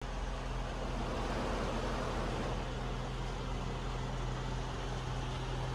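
Steady background noise with a low, even hum underneath and no distinct events: room tone.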